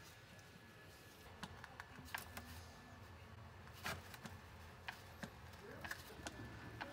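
Faint, irregular clicks and light knocks from a hand pump and hose filling a rear differential with gear oil, over a low steady hum.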